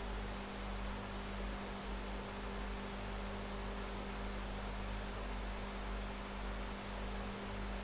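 Room tone: a steady electrical hum with an even hiss underneath, unchanging throughout.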